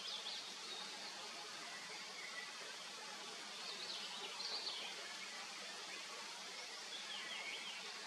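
Honeybees buzzing steadily around a hive entrance, with short bursts of bird chirping about a second in, around four seconds in and near the end.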